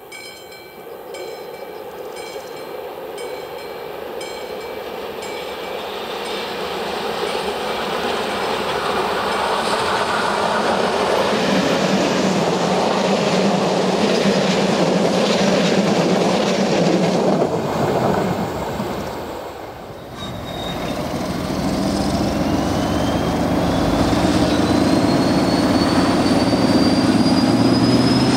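A ČD class 754 'Brejlovec' diesel-electric locomotive and its passenger coaches passing, with the rumble of wheels on the rails building up as the train comes close. After a brief dip about two-thirds through, the locomotive's diesel engine runs close by, and a whine rises steadily in pitch through the last several seconds.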